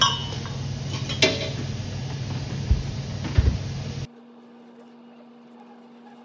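Wood fire burning in an open metal stove firebox, with a steady low hum and a few sharp cracks and knocks. About four seconds in it cuts to a quiet room with a faint steady hum.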